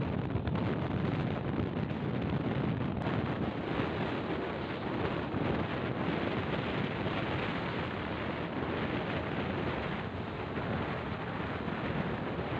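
Steady wind rushing over the microphone, heavy in the low end, with no break throughout.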